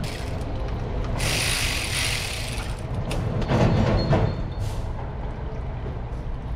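Hand tools working on a Royal Enfield Himalayan's engine during an oil change: metallic clicking and clatter, louder about halfway through, with a few short hisses.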